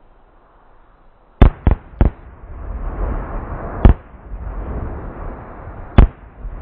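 Firework mortar shells fired from a rack of tubes: five sharp bangs, three in quick succession about a second and a half in, then one near four seconds and one near six, with a low rumble between them.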